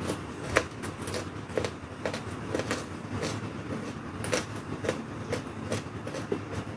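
Close-up chewing of raw vegetables: crisp crunches about twice a second, over a steady low rumble.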